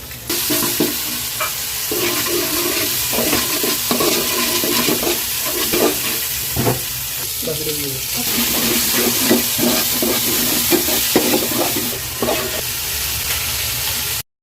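Food frying in a hot pan with a steady sizzling hiss, while a spoon or spatula stirs it, knocking and scraping against the pan. The sizzle starts suddenly just after the start and cuts off abruptly near the end.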